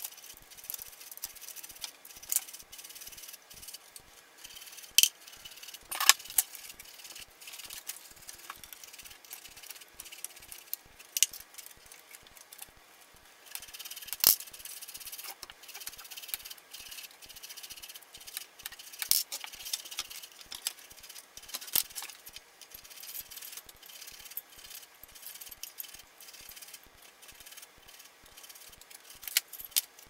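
Metal and plastic CPU-cooler parts handled on a desk, namely the heatsink, mounting brackets and fan: irregular clicks, taps and rattles, with a few sharper knocks now and then, loudest around five to six seconds in.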